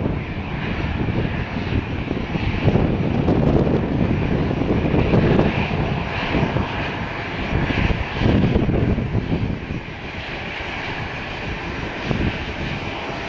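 Airbus A320 jet engines at takeoff thrust as the airliner lifts off and climbs away: a loud, steady roar with uneven low rumbling surges, easing off a little near the end.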